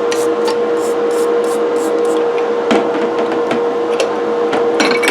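A brush scrubbing greasy cast iron coffee grinder parts clean in ammonia, in quick strokes of about three a second at first and then more sparse, over a steady hum.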